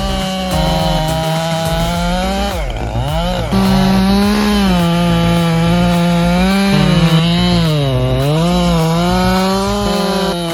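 Chainsaw cutting through wood at high revs, its engine pitch dropping sharply and recovering a few times as the chain bogs in the cut.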